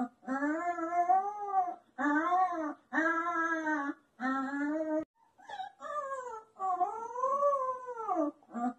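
Recorded howling played back: a run of about six drawn-out howls, each roughly a second long, rising and falling in pitch with short breaks between them.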